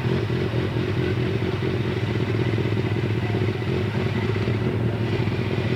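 Yamaha FZR600's inline-four engine running at steady, constant revs for a static noise test.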